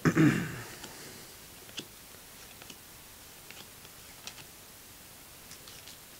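Panini Golden Age trading cards being flipped through by hand, the card stock giving faint, scattered ticks and clicks. A short louder sound comes right at the start.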